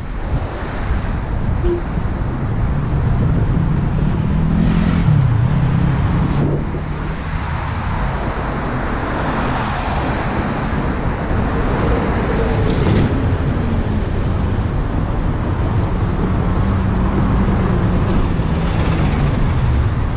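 Road traffic going past close by: the engines of a truck, cars and a bus rising and falling over a steady rush of tyre and wind noise.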